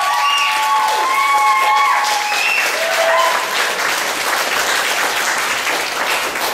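Audience applauding, a dense steady patter of clapping hands, with several high whoops and cheers from the crowd in the first three seconds.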